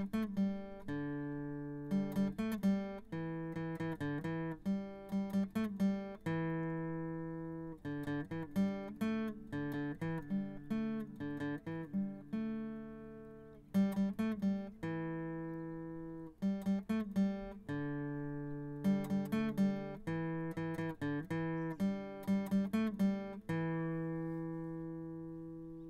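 Solo acoustic guitar playing a gentle fingerpicked tune: runs of plucked notes, each group ending in a chord left to ring out.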